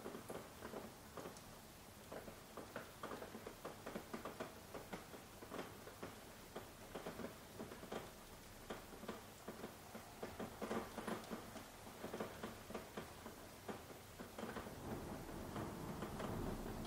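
Soft rain: individual drops ticking and pattering irregularly, several a second, over a faint steady hiss. A lower, fuller rush of rain builds near the end.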